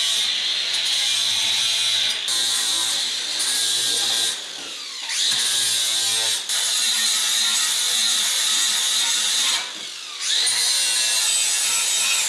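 Handheld angle grinder grinding metal held in a bench vise, deburring and cleaning up small patch pieces. The high steady whine drops off briefly twice, about four and a half and ten seconds in, and picks back up each time.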